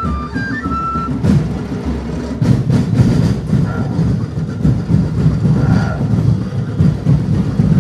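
A flute melody moving in stepped notes stops about a second in. A loud, dense low rumble with a few sharp hits takes over for the rest.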